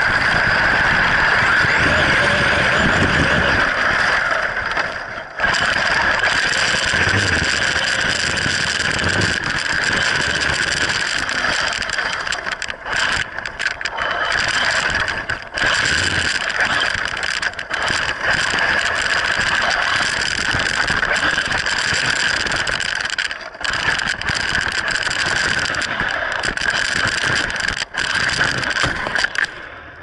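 Radio-controlled truck's motor and drivetrain whining loudly at a steady high pitch close to the mounted camera, cutting out briefly several times as the throttle is let off. Low knocks come from the truck bouncing over rough ground. The whine stops at the very end.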